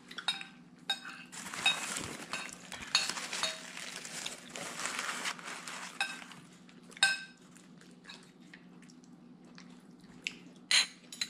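Cutlery clinking against dishes during a meal: scattered light clinks and taps, with a busier stretch of scraping from about two to five seconds in and a couple of sharper clinks later. A faint steady low hum runs underneath.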